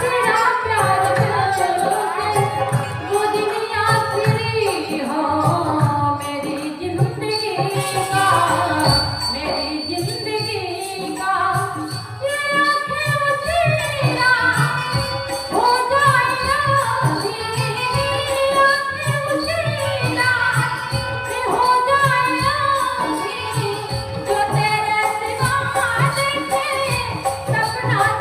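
A woman singing a Hindi song over a steady rhythmic percussion beat.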